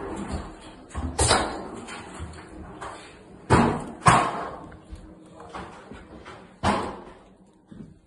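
Doors banging shut: four loud slams, one about a second in, two close together around the middle, and one near the end, each with a short echo.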